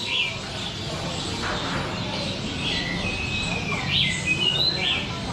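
Caged songbirds singing and chirping: short whistled phrases, one of them repeated about four seconds later.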